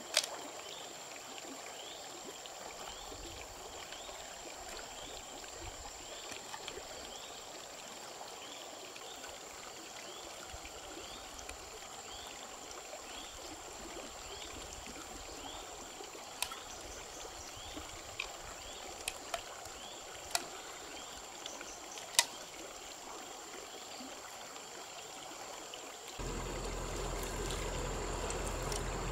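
Shallow stream running steadily over stones, with a steady high insect note above it and a few sharp clicks in the second half. About three seconds before the end the sound gets louder and a low rumble comes in.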